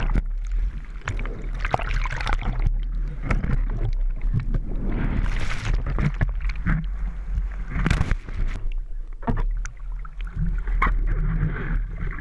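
Surf whitewater churning and splashing over a camera mounted on a surfboard's nose, in irregular bursts over a steady low rumble, as the board is washed through broken waves.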